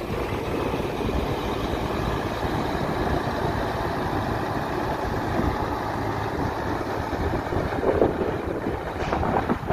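Diesel engine of a Mercedes-Benz Actros tractor unit running steadily as it pulls a loaded tipper semi-trailer slowly across sand.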